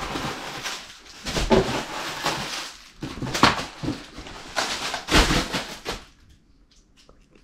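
Flying hockey puck toys being dumped and tossed around a room, in several bursts of clattering and rustling that die down about six seconds in.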